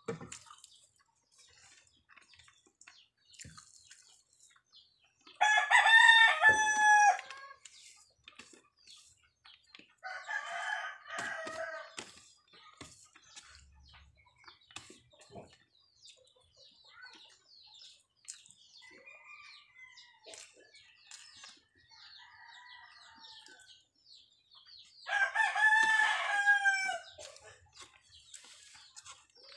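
A rooster crows twice, about six seconds in and again near the end, each crow lasting about two seconds, with a fainter call about ten seconds in. Between the crows come small clicks and mouth sounds of eating rice and noodles by hand.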